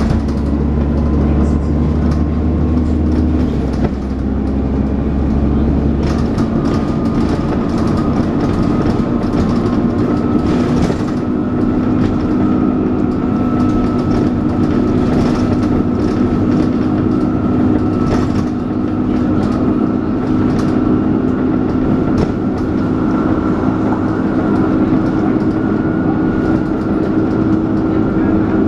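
Dennis Trident 2 double-decker bus heard from on board, its engine running under way. From about six seconds in a steady whine, the 'hoover' sound, slowly rises in pitch over the engine drone and interior rattles.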